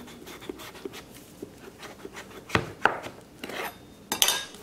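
Kitchen knife shaving the skin off a whole green papaya: a run of short scraping strokes, with a few sharp knocks about halfway through and two longer, louder scrapes near the end.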